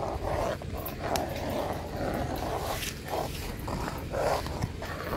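Custard being stirred with a wooden spoon in an aluminium pot over a wood fire: soft scraping and sloshing over a steady low rumble, with scattered short crackles.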